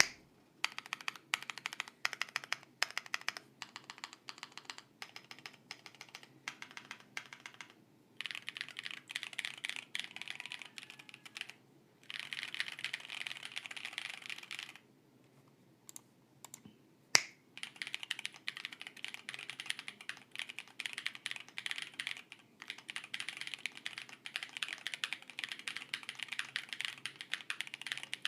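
Typing on an Akko Alice Pro Plus mechanical keyboard with stock OwLab Tungsten switches and Cherry-profile keycaps, its case dampened with foam, polyfill and painter's tape. The keystrokes start scattered, then come in runs of fast typing broken by short pauses, with one sharper, louder clack about 17 seconds in.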